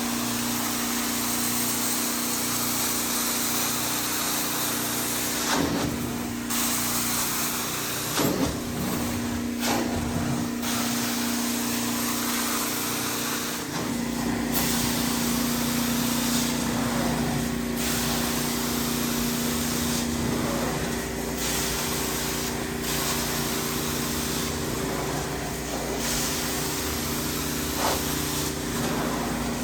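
Hot water carpet extraction machine running with a steady hum, while the wand sprays and vacuums water with a hissing rush. The rush breaks off briefly every few seconds as the wand strokes across the carpet.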